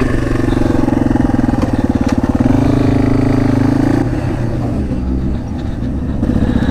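Dirt bike engine running while riding a trail, heard close up from the rider's helmet. Its note climbs a little about two seconds in, drops back as the throttle eases around four seconds in, then picks up again near the end.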